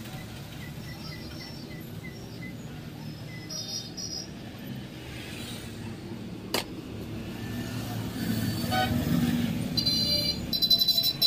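Steady rumble of road traffic with a car horn sounding, and one sharp knock about six and a half seconds in. Near the end, high-pitched tones start up.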